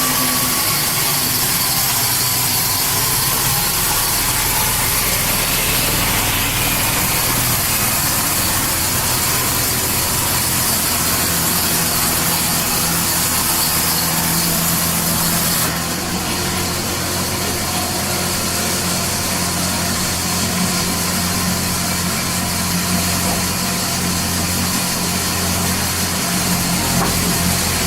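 Powered wood-cutting saw machine running steadily, a motor hum with a hiss over it; the hiss changes abruptly about halfway through.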